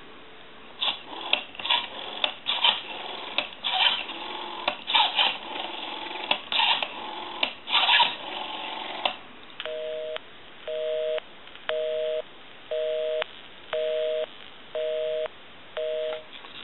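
Western Electric Princess rotary telephone being dialed: bursts of clicks as the rotary dial is turned and runs back, for about nine seconds. Then a North American busy signal sounds through the off-hook handset, seven even two-tone beeps about one a second, because the number dialed is the phone's own line.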